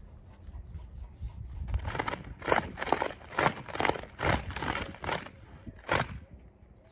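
A small fabric flag on a stick swishing and flapping as it is waved through the air, about two swishes a second for some four seconds, the last one about six seconds in.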